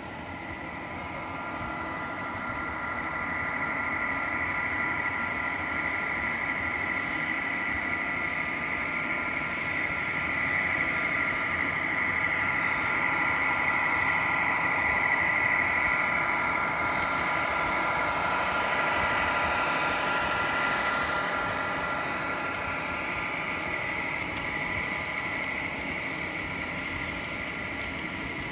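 Model diesel locomotives pulling a train of model boxcars past on a layout, with a steady whine of several tones. The whine grows louder, peaks about halfway through and then fades as the train goes by.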